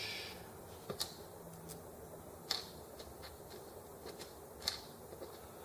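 Scattered light clicks and taps of small parts being handled during assembly of a model engine's ignition switch and wiring, with sharper clicks about a second in, halfway through and near the end.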